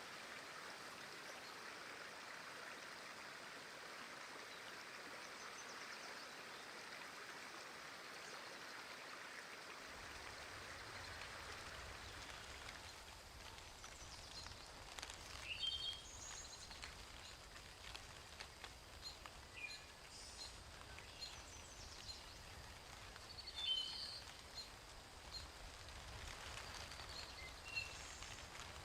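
Outdoor nature ambience: a steady rush like running water. About ten seconds in a low rumble joins it, and from about thirteen seconds scattered short bird chirps and clicks come in.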